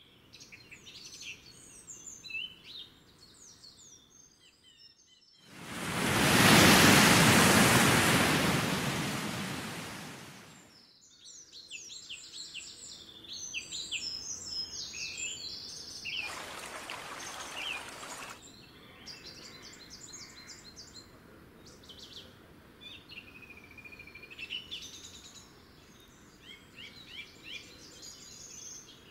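Birds chirping and singing throughout, with many short, quick calls. About five seconds in, a loud rushing noise swells up and fades away over about five seconds. A shorter, fainter rush follows later.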